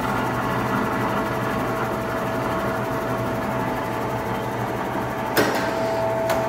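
Blanchard No. 18-36 vertical-spindle rotary surface grinder running, its magnetic chuck turning under the spinning segmented wheel. It gives a steady mechanical hum with a steady whine over it, and two sharp clicks come near the end.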